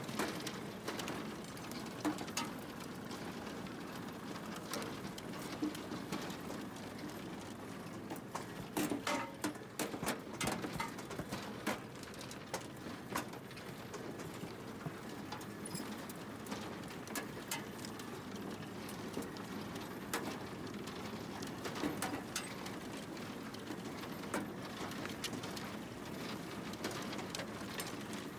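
Potatoes tumbling and knocking against the bars of the moving sorting table on a Hagedorn Wisent potato harvester: many small irregular knocks and rattles over the steady hum of the running machine.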